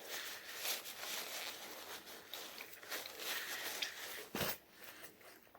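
Close-miked chewing and crunching of food, with a sharp click about four and a half seconds in.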